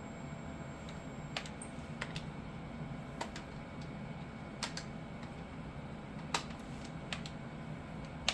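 Irregular clicks of buttons being pressed on an ultrasound machine's control panel, about a dozen over several seconds, as fetal measurements are taken. A steady low hum runs underneath.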